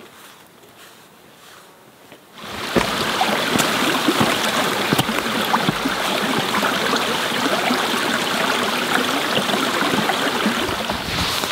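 Stream of running water, loud and steady, starting abruptly about two seconds in after a quiet stretch.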